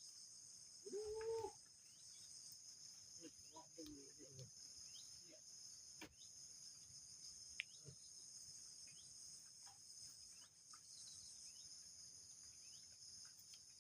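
Faint, steady high-pitched chorus of crickets, with a short faint call about a second in and a few brief faint sounds around four seconds.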